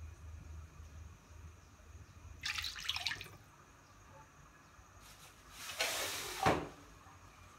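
Water poured into a wok of tomato sauce, in two short splashing pours about two and a half and six seconds in.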